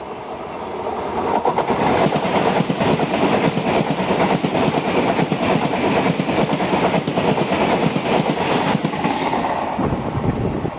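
Saffron Vande Bharat electric train set passing close alongside on the next track: a loud rush with a rapid clatter of wheels over rail joints. It swells in about a second in and eases slightly near the end.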